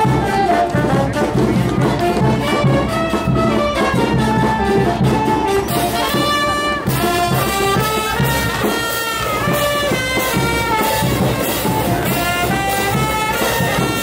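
Jazzy brass music led by trumpets and trombones, playing without a break.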